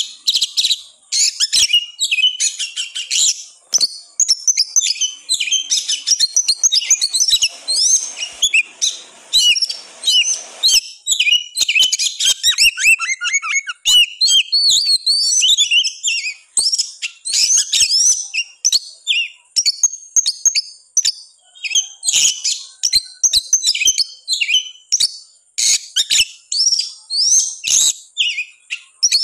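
Oriental magpie-robin (kacer) singing hard and without let-up: a fast, unbroken stream of varied high whistles, chirps and short up-and-down slurs, with sharp clicking notes mixed in. This is the worked-up, aggressive territorial song that is played to goad other magpie-robins into singing.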